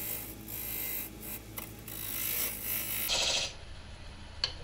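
Irregular scraping and rustling from a turning tool being handled at a wood lathe's tool rest, over a steady low hum. Two light clicks come near the end.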